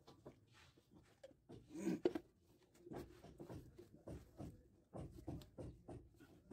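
Handling noise from PVC pipe fitting: a brush scraping solvent cement onto white PVC drain fittings, and the plastic fittings being picked up and knocked. A series of short scratchy scrapes and light knocks, the loudest about two seconds in.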